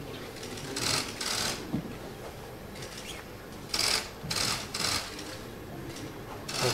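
Several short bursts of rapid camera-shutter clicking from press photographers' cameras, over a low murmur in the hall.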